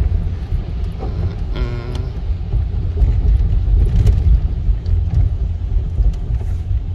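Steady low rumble of a car driving on a rain-soaked road, heard from inside the cabin, with a brief pitched tone about one and a half seconds in.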